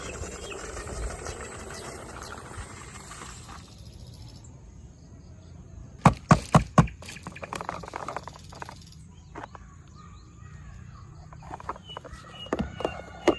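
A few sharp clicks and knocks, a quick cluster of about five about six seconds in and a few more near the end.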